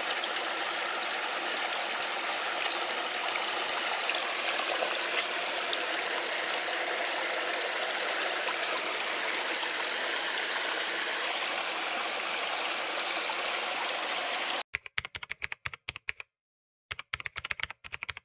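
Mountain stream rushing steadily over rocks, with a few faint high chirps now and then. A few seconds before the end the sound breaks up into rapid on-off stutters with short gaps of silence.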